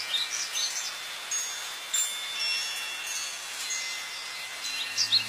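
Small birds chirping in quick short notes, some brief whistled tones among them, over a steady outdoor hiss.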